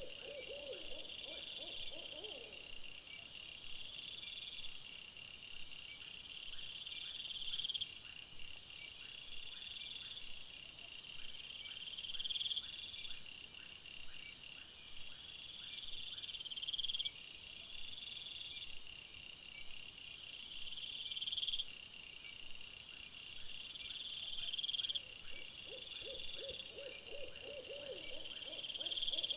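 Night-time chorus of insects trilling in repeated bursts, with a short run of low, rapid hooting or croaking pulses at the start and again near the end.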